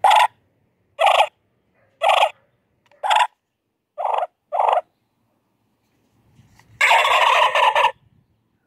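Turkey calls played through a handheld electronic game call's speaker: a run of short calls about a second apart, the last two closer together, then one loud gobble lasting about a second near the end.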